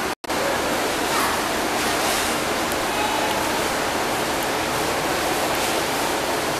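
Steady rushing, water-like noise of aquarium aeration and filtration, bubbling water running without change; it drops out for an instant at an edit cut just after the start.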